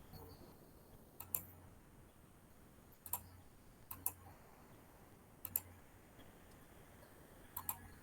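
Faint single keystrokes on a computer keyboard, about six sharp clicks at uneven intervals of one to two seconds, with two close together near the end, over a low hum.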